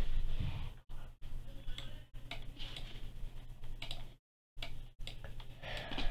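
Scattered computer mouse clicks, one every half second to a second, over a steady low electrical hum. The sound cuts out to dead silence for short moments, longest about four seconds in.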